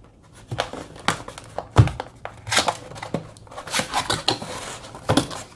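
Packaging being handled: plastic and cardboard rustling and crinkling, with scattered clicks and a single sharper knock a little under two seconds in.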